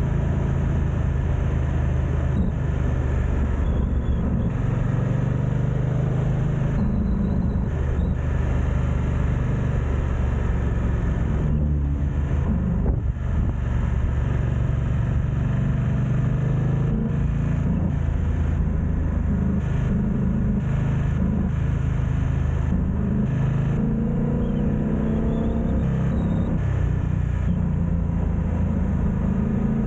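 BMW F900XR motorcycle's parallel-twin engine running under way, its deep exhaust note shifting in pitch with the throttle and rising near the end, over steady wind noise on the camera's built-in microphones.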